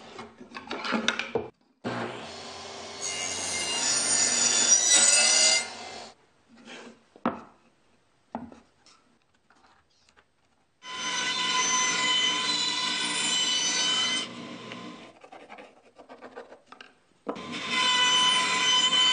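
Power saw cutting wood in three long passes, with short knocks of boards being handled between them; the last pass, starting near the end, is a bandsaw cutting through a board.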